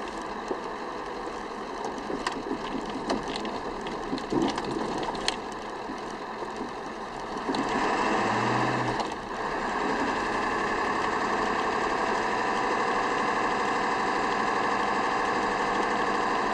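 Cabin noise of a 1997 Ford F-250's 7.3 L Power Stroke turbo diesel V8 driving at low speed: a steady drone with a few light knocks in the first several seconds. It grows louder for about a second and a half around eight seconds in.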